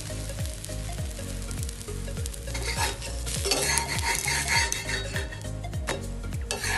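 Whole urad dosa sizzling in oil on a cast-iron tawa; a metal spatula scrapes in under it and flips it over about halfway through. Background music plays underneath.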